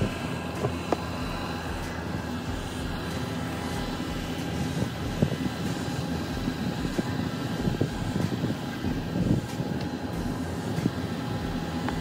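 A car engine idling steadily, with the irregular swish and scrape of a snow brush pushing heavy snow off the car's hood and windshield.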